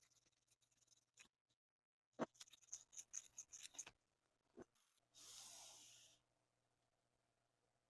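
Small parts and tools handled at a workbench: a sharp click, then a quick run of light clicks and taps. A hiss lasting about a second follows, about five seconds in.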